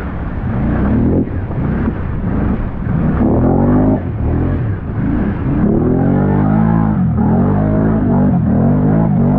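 Can-Am ATV engine revving, its pitch climbing and easing off several times as the throttle is worked.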